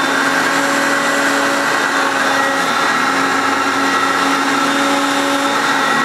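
Hoover Concept One upright vacuum cleaner's motor running with a steady whine and rush of air, its self-propelled power drive engaged and pulling the machine across carpet.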